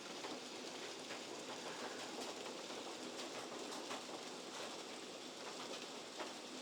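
Hailstorm pelting down steadily: a dense hiss of falling hail and rain with scattered sharp ticks of hailstones striking.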